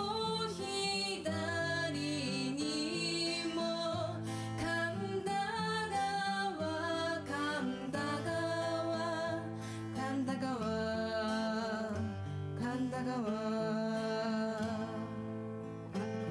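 A simple folk song playing: a singer's voice carrying the melody over strummed acoustic guitar.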